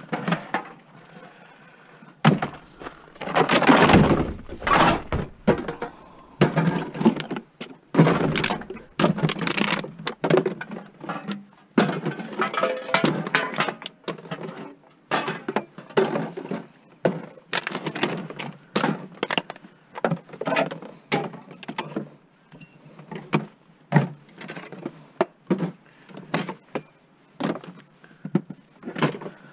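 Scrap items being handled and set down: a long run of irregular knocks, thunks and clatter.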